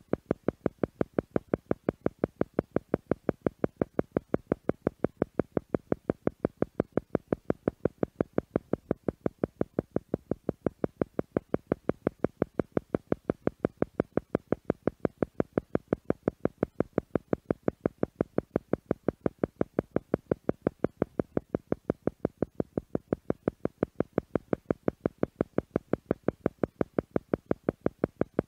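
Electronically generated theta-rate meditation tone: short, even pulses repeating steadily at about four a second, unchanging throughout.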